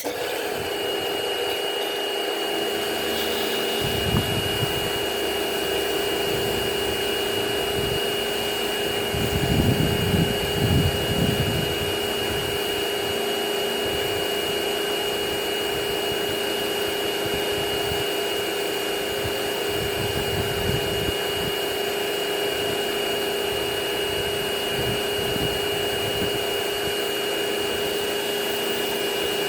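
Pressure washer starting up suddenly and running steadily, spraying through a snow foam cannon lance: a motor hum with a high whine over the hiss of the spray, with a few louder rumbles about ten seconds in.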